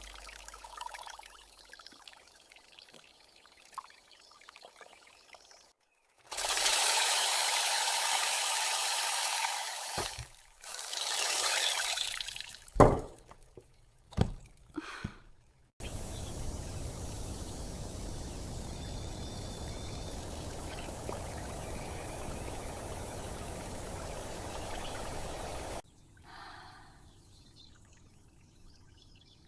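Miniature cooking sounds: liquid poured into a small pot in two loud spells, a couple of sharp knocks, then about ten seconds of a steady hiss from the pot that stops suddenly.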